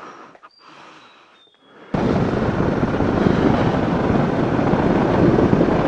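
Motorcycle on the move, heard mostly as wind rushing over the bike-mounted camera's microphone: a loud, steady rush that cuts in suddenly about two seconds in. Before it there are only faint soft sounds and a few thin high chirps.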